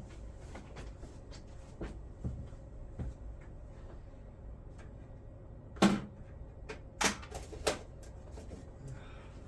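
Handling noise: scattered light clicks and knocks, with three louder knocks in the second half.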